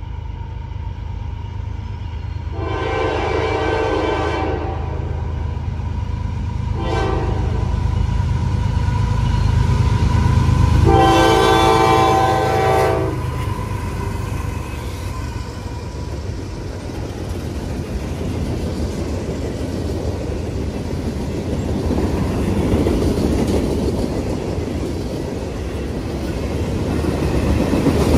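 CSX freight train at a grade crossing: the diesel locomotive's horn blows three times (long, short, long) over the rising rumble of its engines while the crossing bell rings. After about fourteen seconds the locomotives have gone by and freight cars roll past, their wheels rumbling and clacking on the rails.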